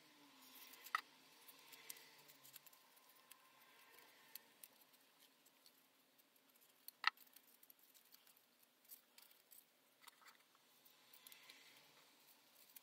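Near silence with faint rustling of the paper model and small clicks as it and the tools are handled; a single sharp click about seven seconds in is the loudest sound, with a smaller one about a second in.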